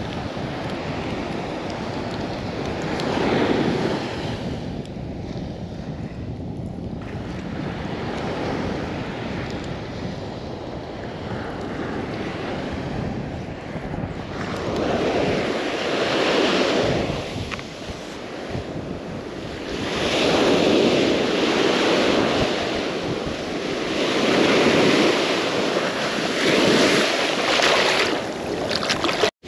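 Ocean surf breaking and washing up the beach in repeated swells, louder in the second half, with wind buffeting the microphone.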